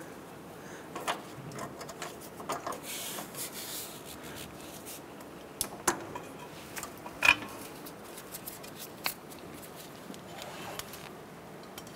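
A bungee cord being hooked around a car's front steering knuckle and brake caliper: scattered light clicks of its metal hooks against the parts, with rubbing and handling noise, the sharpest clicks about six and seven seconds in.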